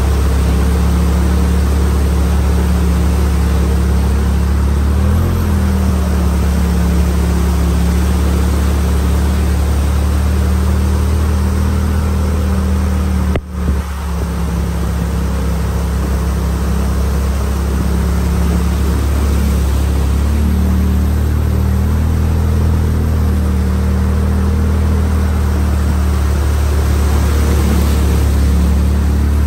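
A vehicle engine running steadily at an even speed, with a brief pitch wobble about five seconds in and a short break in the sound about halfway through.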